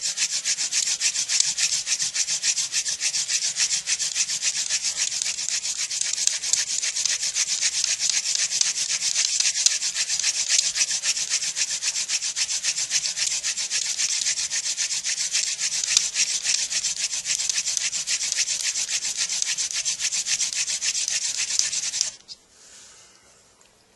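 Hand-drill friction fire: palms spinning a wooden spindle back and forth into a socket on a wooden hearth board, a steady, fast rubbing of hands on the spindle and wood on wood. It stops abruptly near the end when the drilling stops.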